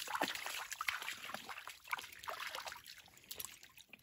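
Shallow creek water trickling and splashing as a young coonhound wades into it, with a patter of small irregular splashes.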